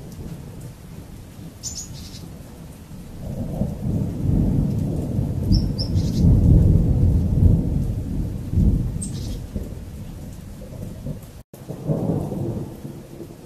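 Rolling thunder from a strong thunderstorm: a low rumble that builds over a few seconds, is loudest around the middle, fades away, then swells again near the end.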